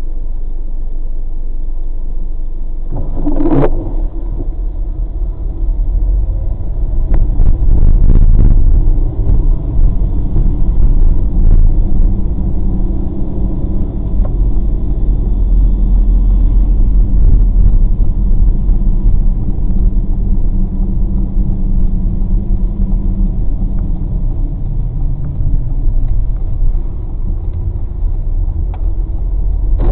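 Car interior noise, heard through a dashcam: a steady low rumble of the engine and tyres. There is a short sharp sound about three and a half seconds in, and the rumble grows louder a few seconds later as the car pulls away from the intersection and drives on.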